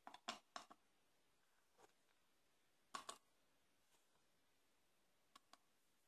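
Near silence with a few faint, scattered clicks of pieces of dark chocolate being dropped into a ceramic mug of batter.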